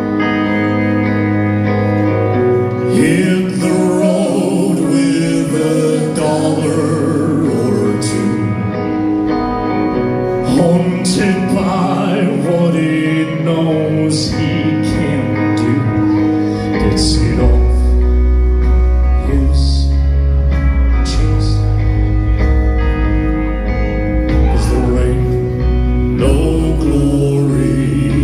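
Live country band with electric guitars, bass and drums playing loudly through a venue's PA, heard from the crowd. A heavy low bass comes in a little over halfway through.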